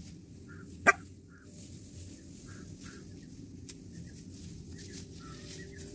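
A dachshund gives a single short, sharp bark about a second in, with birds chirping in the background.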